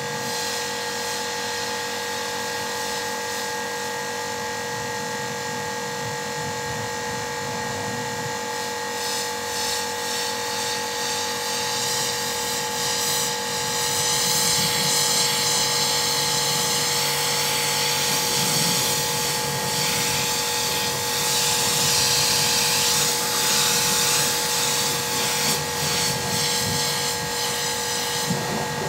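Kärcher HD 5/15 C pressure washer's electric motor and piston pump running steadily under load, with a constant whine, while the high-pressure jet sprays the car, the test run of a freshly rebuilt pump. The hiss of the spray grows louder and more uneven about halfway through.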